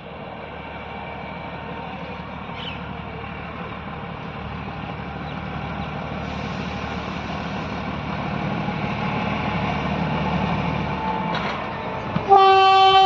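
A train running, its rumble growing steadily louder, then a loud, steady horn blast starting about 12 seconds in.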